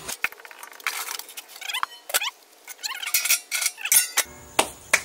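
Clinks, knocks and metallic rattles of a Weber Smokey Mountain smoker's enamelled steel parts being handled: the water pan taken out and the domed lid set back on. A longer ringing rattle comes about four seconds in.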